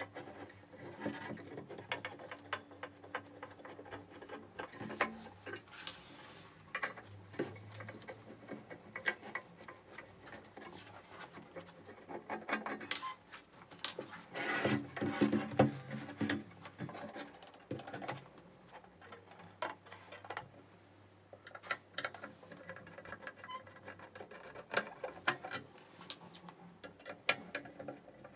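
Screws being undone from a welder foot pedal's housing by hand: a run of small clicks, scrapes and knocks of the screwdriver and the pedal being handled, busiest about halfway through.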